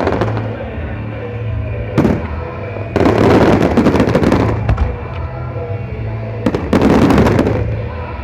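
Aerial fireworks bursting and crackling in loud barrages, heaviest about three seconds in and again near the end, over music playing from an outdoor sound system.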